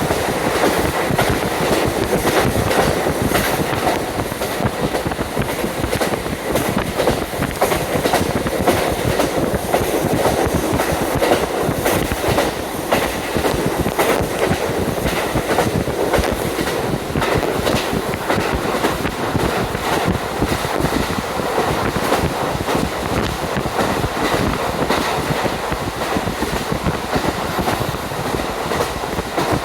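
Ride noise inside a JR Hokkaido KiHa 40 diesel railcar under way: the diesel engine and running gear drone steadily while the wheels click over rail joints, with wind rushing in through an open window.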